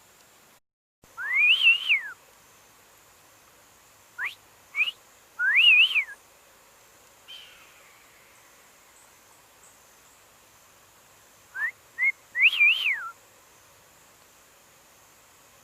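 Someone whistling a short call three times. Each phrase slides up, wavers and drops back down, and the second and third are each led by a couple of quick rising chirps.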